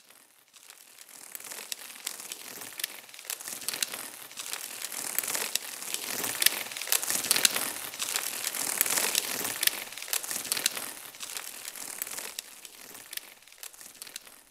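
Dense crackling, crinkling noise made of many sharp clicks. It builds up from near silence, is loudest around the middle, thins out toward the end and cuts off abruptly.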